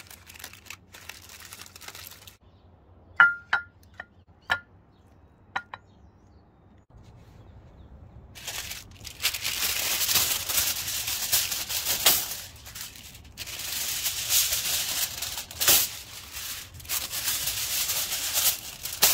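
Aluminium foil crinkling loudly as a sheet is pulled off the roll and handled, starting about eight seconds in and going on in rustling spells with brief pauses. Before that there are a few sharp clicks and faint rustling.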